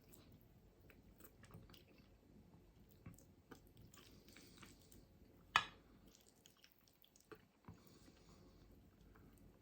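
A person quietly chewing piri piri chicken wings, with small wet mouth clicks. One sharp click about halfway through is much louder than the rest.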